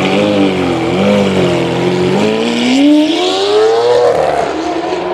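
Lamborghini Aventador's V12 engine revving, its pitch wavering with throttle blips, then rising steadily as the car accelerates away from about two seconds in. The sound fades near the end as the car pulls off.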